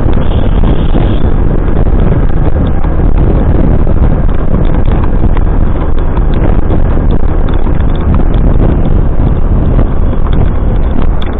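Motorcycle running on the road, heard from on the bike, with steady wind noise on the microphone.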